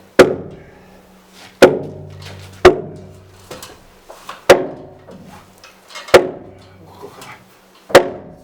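Six heavy hammer blows on a wooden beam, spaced one to two seconds apart, each with a short ringing after it, as the timber is knocked into place.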